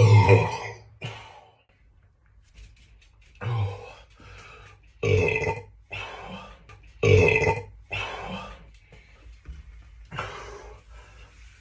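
A person burping again and again: several loud belches, one right at the start and others about 3.5, 5 and 7 seconds in, with weaker burps between.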